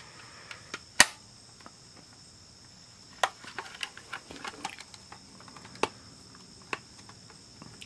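Plastic case of a Panasonic RQ-V51 portable cassette player clicking and rattling as it is turned and squeezed in the hands, hunting for the clips that hold it shut. One sharp click about a second in is the loudest, then a scatter of smaller clicks and taps, over a faint steady high hiss.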